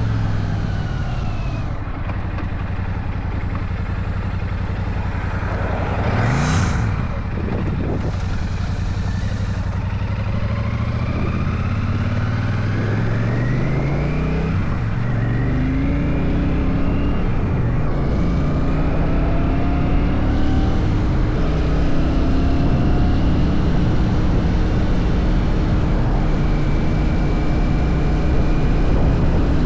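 Royal Enfield Shotgun 650's parallel-twin engine under way: engine speed falls at first, then climbs in steps through the gears from about eleven seconds in and holds steady. A brief loud rush of noise comes about six seconds in.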